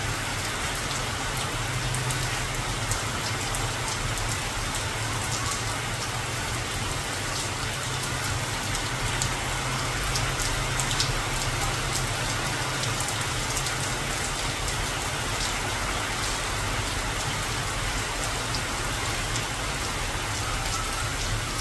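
Steady rain falling on tree foliage, a continuous hiss of rain with a dense patter of individual drops.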